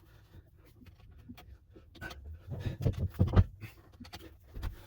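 Irregular metal scraping and clunking as a badly stuck spin-on oil filter is forced round with a screwdriver driven through its canister. The louder clunks bunch together about two and a half to three and a half seconds in.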